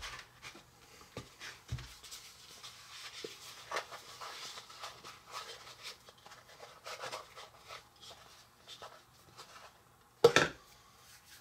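Hands kneading and squeezing sticky brownie dough: faint soft squishing and rubbing with small clicks, and one short louder thump near the end.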